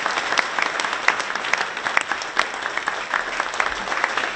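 A roomful of people clapping, a standing ovation: dense, steady applause made of many individual claps.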